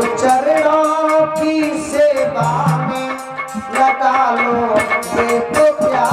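Indian devotional folk song: a held, gliding melody, with singing, over a tabla keeping a steady beat.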